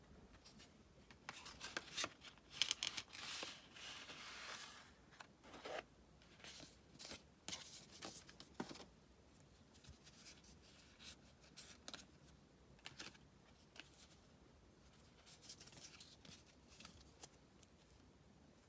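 Quiet handling of a music album's packaging during unboxing: a stretch of tearing and rustling in the first few seconds, then scattered clicks and rustles.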